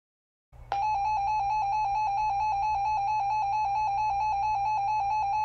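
Emergency Alert System attention tone: a steady, loud alarm tone that starts about half a second in and holds, over a low electrical hum.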